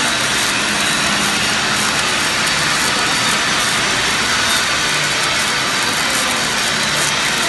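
Welding arc of an automatic CNC seam welder fed by a Fronius power source, burning steadily as the torch travels along a stainless steel seam: a loud, even hiss.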